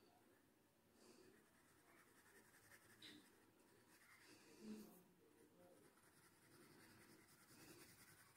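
Very faint graphite pencil strokes scraping on paper while shading, close to silence, with a couple of slightly louder strokes about three and five seconds in.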